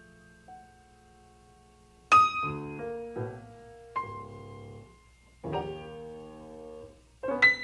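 Solo piano music. A soft note fades away, then about two seconds in a loud chord is struck, followed by sparse chords and single notes that ring and die away with pauses between them. A quicker flurry of notes begins near the end.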